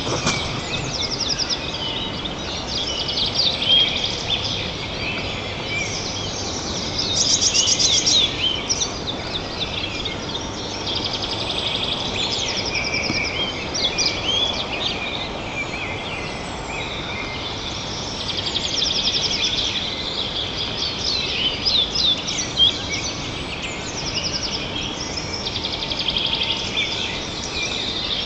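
Small songbirds singing in a woodland chorus: overlapping chirps and quick high trills, several voices at once, over a steady hiss.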